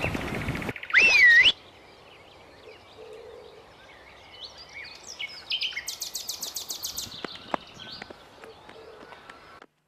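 Songbirds chirping in an open meadow, with a quick run of repeated high chirps about six seconds in. About a second in there is a brief, loud, high squeal that rises and wavers in pitch.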